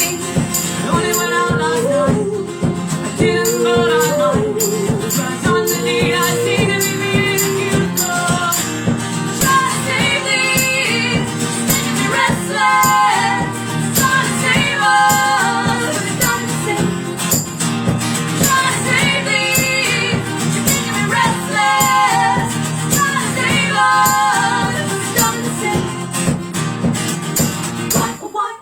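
A duo of women singing a folk-pop song over acoustic guitar, with a steady, evenly paced strummed rhythm under the vocal line. The music breaks off at the very end.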